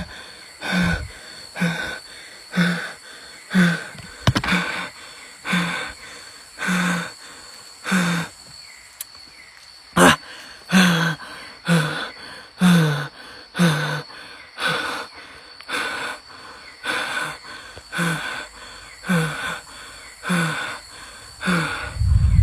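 A man breathing hard and rhythmically, about one loud breath a second, over a steady high whine of insects.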